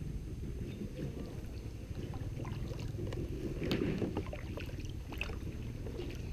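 Kayak paddle strokes: water splashing and dripping off the blade in irregular small splashes, with a busier splash about halfway through, over a steady low rumble.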